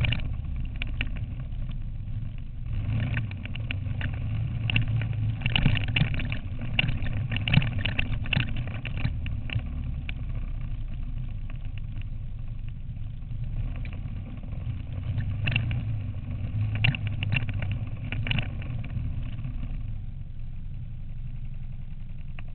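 Quad bike (ATV) engine running steadily over a rough dirt trail, with frequent knocks and rattles as the machine jolts over the bumps.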